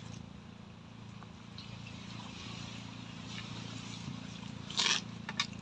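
Soft sounds of people eating by hand from plastic plates over a quiet steady outdoor background, with a brief louder scrape about five seconds in and a couple of small clicks just after.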